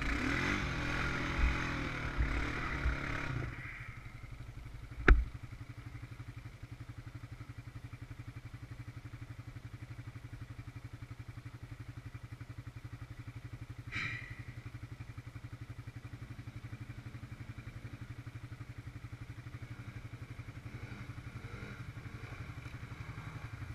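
Honda Rancher 420 ATV's single-cylinder four-stroke engine running under throttle with a few thumps for the first few seconds, then settling to a steady idle. A sharp knock comes about five seconds in and a lighter one near the middle.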